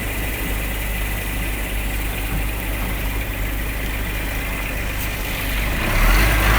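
Scania R-420 truck's diesel engine running steadily, then growing louder about six seconds in.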